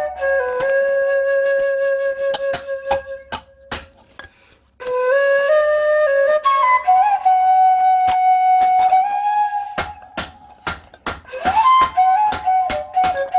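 A flute plays a slow melody of held notes, with a break about four seconds in. Over it come sharp metallic taps of a hand hammer on a forged bell at the anvil: scattered at first, then a steady run of about three blows a second in the last few seconds.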